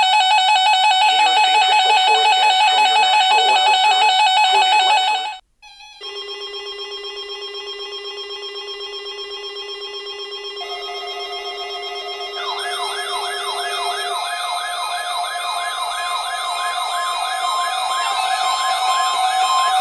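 Synthesized electronic tones. A loud, steady multi-tone sound cuts off about five seconds in. After a brief gap, quieter layered tones start and build, and repeated warbling notes join about twelve seconds in.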